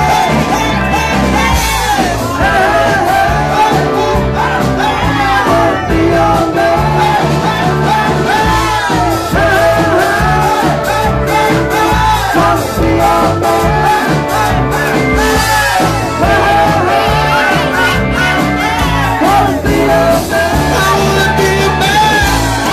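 A live band playing loudly, with a singer's vocals over the instruments.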